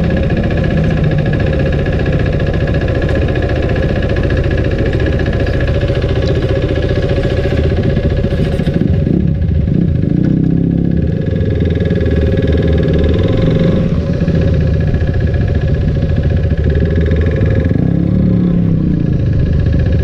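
Motorcycle engine running at low speed close to the microphone, its pitch rising and falling about ten seconds in and again near the end as the throttle is opened and eased.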